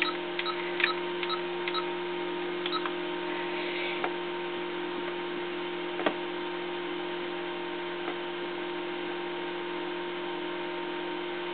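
Steady electrical hum of several tones from the running radio station equipment. In the first few seconds it is joined by a series of small clicks with short faint beeps as the Kenwood transceiver's front-panel keys are pressed to change band, then two single clicks.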